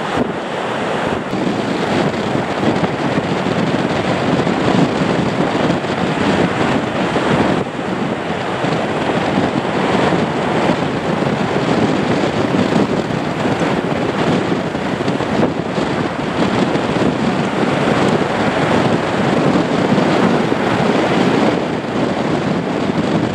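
Boeing 737-800's CFM56-7B jet engines at takeoff thrust during the takeoff roll and climb-out, a steady rushing jet noise mixed with heavy wind buffeting the microphone.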